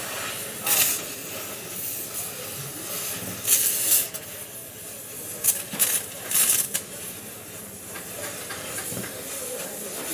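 Gas welding torch hissing steadily as its flame plays on an aluminium alloy car wheel rim while a filler rod is fed in, with several short, much louder bursts of hiss about a second in, at three and a half seconds, and around six seconds.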